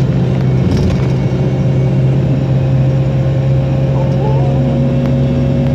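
Bus cabin noise at highway speed: a steady low drone of the engine and road, with a held tone above it.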